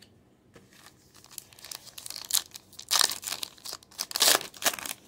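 Foil wrapper of a Topps trading-card pack crinkling and tearing as it is ripped open by hand. The crackling builds from faint handling to loud tearing around three seconds in and again just past four seconds.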